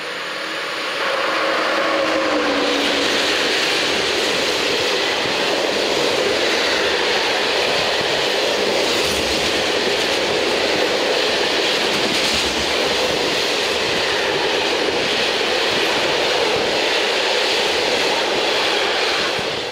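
A train passing at speed on the main line: a steady, loud rumble and rattle of wheels on the rails that swells over the first second or two, with a falling tone in the first few seconds.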